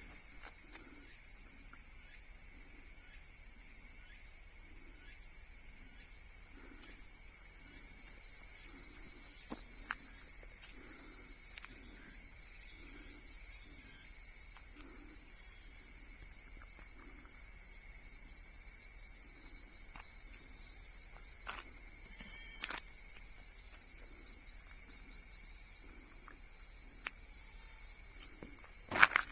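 Steady high-pitched chorus of insects, with a faint low throb repeating about once a second beneath it and a sharp knock near the end.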